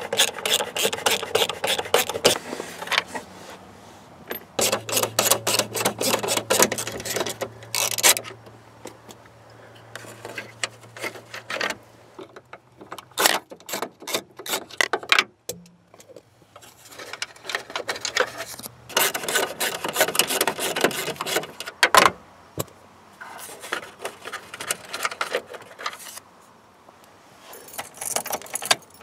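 Quarter-inch socket ratchet clicking in quick runs with pauses between, as the screws holding the instrument cluster in the dash are turned out.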